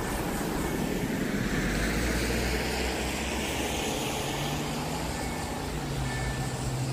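A car passing close by on a wet road: tyre hiss swells to a peak a couple of seconds in and fades, and a low engine hum from further traffic builds in the second half.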